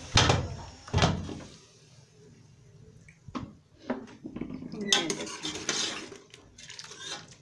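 Aluminium pressure cooker lid knocking twice as it is twisted off and lifted, then a metal ladle clinking and scraping against the pot while stirring.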